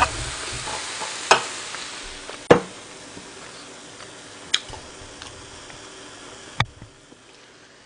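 Carbonated soda poured from a can into a plastic cup held up to the microphone, fizzing with a hiss that slowly dies away as the bubbles settle. A few sharp clicks come through along the way.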